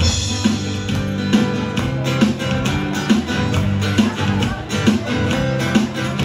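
Background music: a song with strummed guitar over a steady bass and beat.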